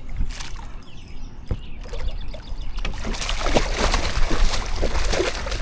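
Water sloshing and splashing around a small boat, with irregular knocks and clicks that grow busier about three seconds in, over a steady low rumble.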